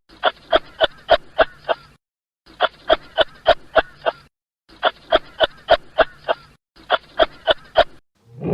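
A duck quacking in fast runs of about eight quacks, four runs in a row with short pauses between.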